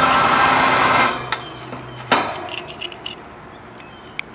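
Electric drive motor of a remote-controlled antenna tower cart running with a steady hum for about a second, then stopping. A few clicks and one sharp knock follow, and the motor starts up again right at the end.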